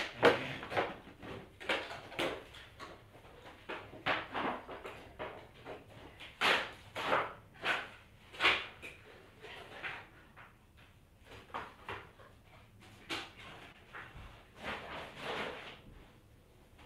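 Irregular knocks and clatter from offscreen, like drawers or cupboard doors being opened and shut, in a small room.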